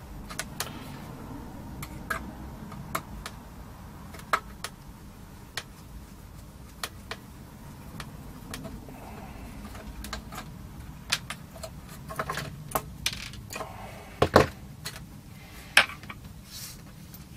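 Screwdriver and small metal parts clicking and clattering against an amplifier chassis as it is worked apart by hand, in scattered irregular clicks, with a busier stretch and a couple of louder knocks near the end.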